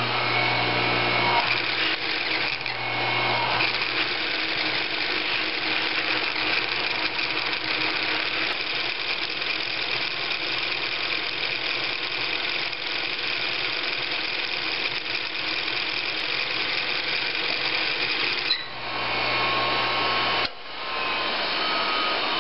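Singer 111W155 industrial sewing machine running to wind a bobbin: a steady whir with a high whine from the belt-driven bobbin winder spinning. Near the end the sound changes as the full bobbin's thread rubs against the winder's trip arm, which does not pop out because the winder wheel has too little tension against the belt, and then the level drops.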